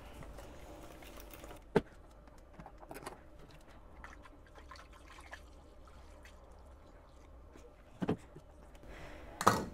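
A yeast starter being poured into a fermenter of cooled wort to pitch the yeast: a faint, steady pour of liquid, with a few sharp knocks.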